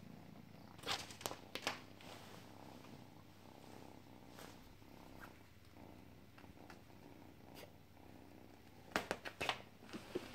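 Domestic cat purring steadily while it is stroked, with a few short crackling rustles about a second in and again near the end.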